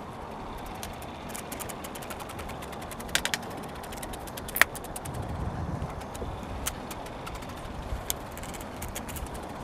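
Fishing reel's drag clicking in irregular quick runs as a hooked oversized sturgeon pulls line off, over a steady wash of wind and water. The clicks come thickest a couple of seconds in, with one sharper click about halfway through.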